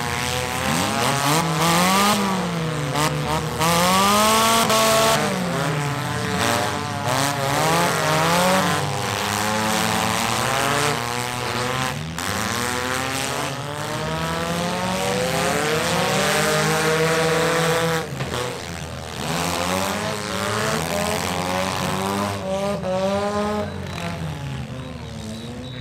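Engines of several demolition derby cars revving up and down again and again as they drive and ram each other on a dirt track, with a couple of sudden knocks of impact.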